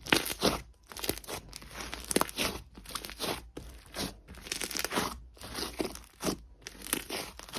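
Slime being squeezed and worked by hand, giving crackling, crunchy squishes in a run of presses about two a second.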